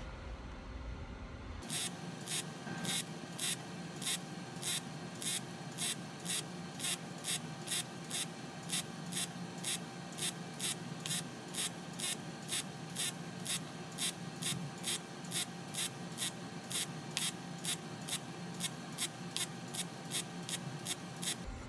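MIG welding arc on thin aluminium pop cans, fed with 4043 aluminium wire, crackling in an even pulse about two and a half times a second over a steady hiss. It starts about two seconds in and stops just before the end.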